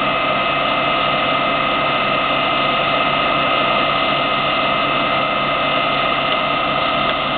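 Knee mill head with a 2 hp three-phase motor running steadily under power, giving a machine whine of several steady tones, while the quill power down-feed is engaged.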